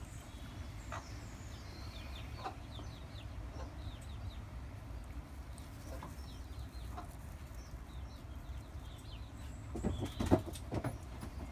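Broody Wyandotte hen sitting on a clutch of eggs, making short soft clucks every few seconds while she tucks the eggs under her. A louder cluster of clucks and knocks comes about ten seconds in.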